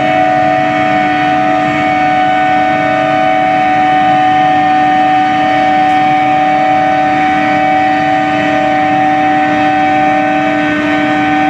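Induction billet heating furnace running: a steady electrical hum of several fixed tones over a hiss, unchanging in pitch or level.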